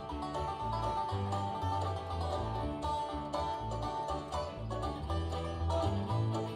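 Acoustic string band playing an instrumental break in bluegrass style: an upright bass walks underneath while guitars strum and a plucked string instrument picks the lead line.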